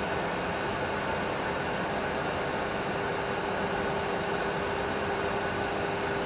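Steady cockpit noise in a Boeing 737 Classic full flight simulator during a climb: an even rush of sound with a constant hum, the simulator's engine and airflow sound mixed with its cooling air.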